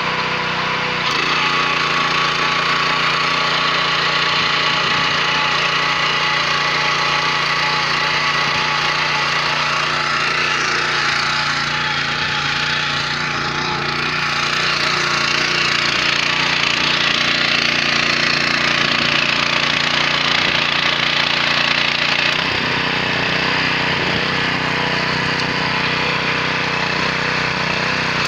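WEIMA 1000N walk-behind tractor's 6 hp engine running under load, its rotary tiller tines churning through a mustard crop: a loud, steady mechanical noise. The engine note shifts about a second in and again about 22 seconds in.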